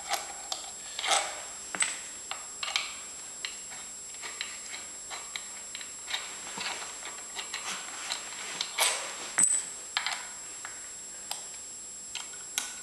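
Irregular light metallic clicks and taps of a hex key working the bolts of a lathe headstock's clutch cover, loosening them, with louder clinks about a second in and again near nine seconds.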